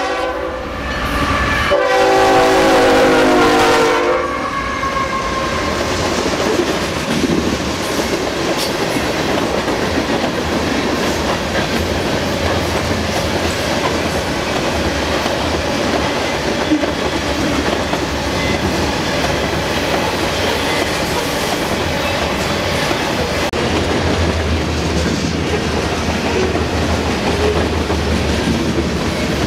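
CN freight train's diesel locomotive sounding its air horn: a blast ending just after the start, then a second blast about two seconds long. Then the train's covered hopper cars roll steadily past on the rails.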